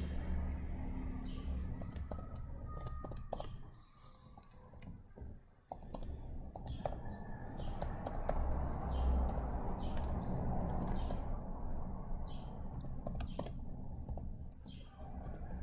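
Typing on a computer keyboard: irregular key clicks over low background noise.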